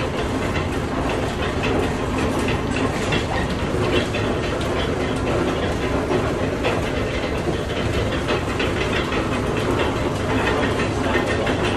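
Steam-powered cider mill machinery running, a steady mechanical clatter with many small knocks and clicks.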